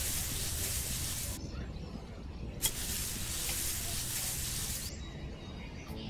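Small metal spoon scraping and digging through sand, in two long scrapes of a second and a half to two seconds each.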